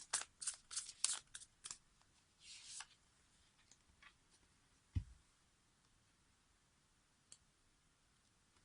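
Tarot cards being shuffled: a quick run of crisp card snaps over the first couple of seconds, then a soft swish, and a single low thump about five seconds in.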